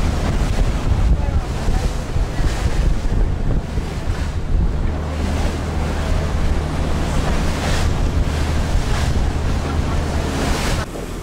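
Tour motorboat underway: a steady low engine drone under the rush of water against the hull, with wind buffeting the microphone.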